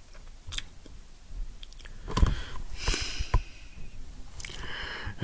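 Handling noise on the recording device close to its microphone: rustling, with several sharp clicks and knocks between about two and three and a half seconds in.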